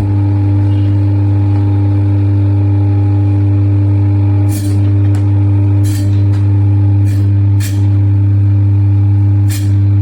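Electric chicken cutting machine running with a loud, steady hum, broken by about six brief sharp noises in the second half.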